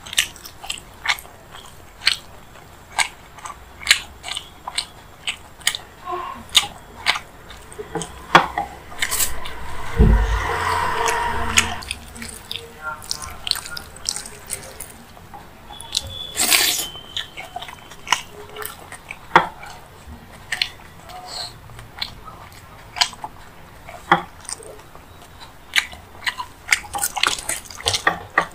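Close-miked eating: wet chewing and lip smacks of rice mixed with paneer masala gravy, eaten by hand, heard as a steady string of short sharp clicks. About ten seconds in comes a louder rustling bump lasting a couple of seconds.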